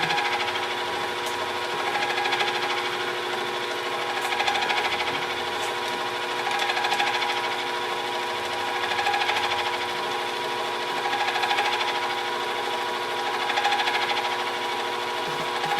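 Benchtop mini milling machine running with a steady motor whine while the cutter works a brass part; the sound swells and eases regularly about every two seconds.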